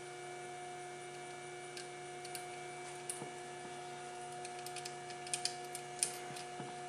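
Steady electrical hum with a few faint clicks and taps, more of them in the second half, as a wire is worked off the alternator's terminal.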